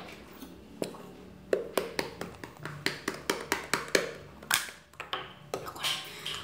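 A run of quick, sharp taps and clicks, several a second through the middle, then two short hissing scrapes near the end: a glue bottle, spoon and bowl being handled while white glue is emptied out.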